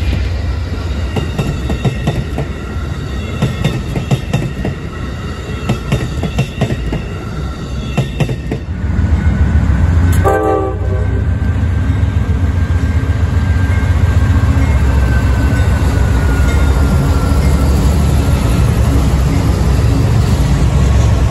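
Amtrak passenger cars rolling past with their wheels clicking over rail joints. About nine seconds in, CSX freight diesel locomotives take over with a heavy, deep engine rumble. A short horn blast sounds shortly after, and a thin tone falls slowly as the locomotives go by.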